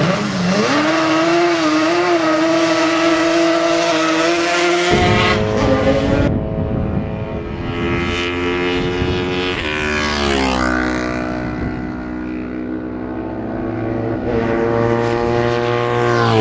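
A classic racing motorcycle engine catches as the bike is push-started, and its note climbs and is held at high revs. After a cut, racing motorcycles pass at speed, each engine note dropping in pitch as it goes by, once about two-thirds of the way in and again at the end.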